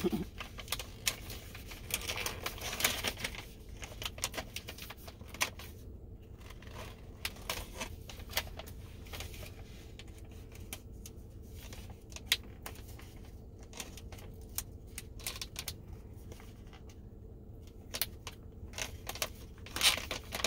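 A plastic snack pouch crinkling and rustling in hands, in scattered clicks and crackles, busiest about two seconds in and again near the end, as it is opened and the chocolate popcorn bites are taken out.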